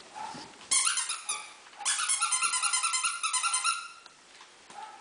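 Squeaky dog toy squeezed over and over: a short burst of high squeaks, then a quick, even run of squeaks, about six or seven a second, lasting nearly two seconds.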